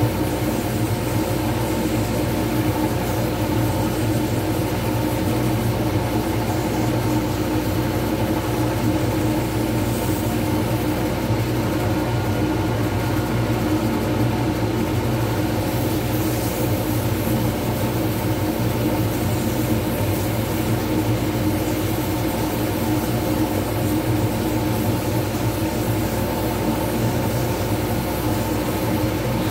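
Wood lathe running steadily with a resin pen blank spinning between centres: a constant machine hum made of several steady tones.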